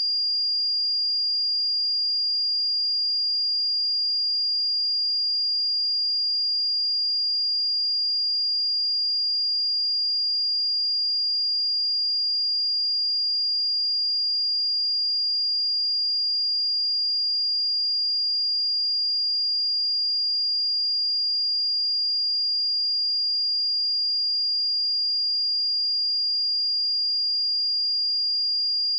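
A single steady 4812 Hz sine-wave test tone, a constant high-pitched pure beep at even loudness.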